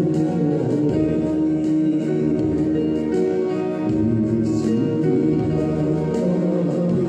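Slow devotional music with long held chords that change every few seconds.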